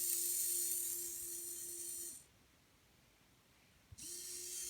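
Small DC hobby motor running with a steady whine and high hiss, cutting off about two seconds in, then starting again with a click after a short silence as it is driven forward and backward.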